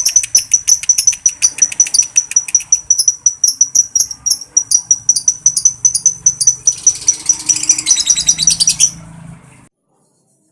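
Lovebird ngekek: a long, fast run of sharp, high-pitched chirps, about five a second, growing into a denser chatter before it stops about nine seconds in.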